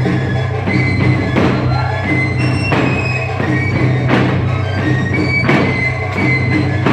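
Mexican folk dance music with fiddle and percussion, with a sharp beat about every second and a half.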